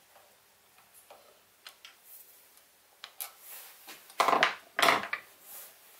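Small metal tools being handled and set down on a workbench: a few light clicks, then two louder short clatters about four and five seconds in.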